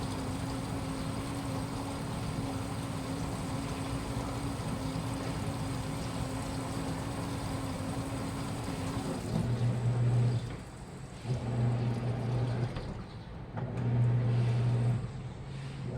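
Washing machine running with a steady motor hum. About nine seconds in, the sound changes to a lower motor hum that starts and stops in bursts of about a second.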